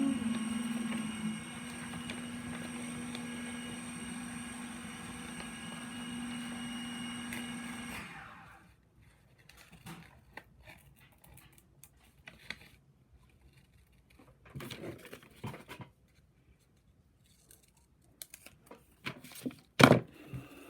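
A steady hum that cuts off suddenly about eight seconds in, then scattered short snips and paper rustles of scissors cutting paper, with one loud sharp click near the end.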